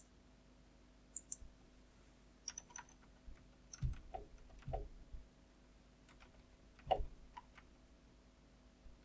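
Scattered faint clicks and taps of a computer keyboard and mouse, with a few louder, duller taps around the middle.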